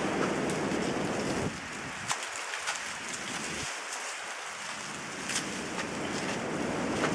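Strong wind buffeting the microphone as a low rumble and hiss. It eases off for a few seconds in the middle, then builds again, with scattered light clicks over it.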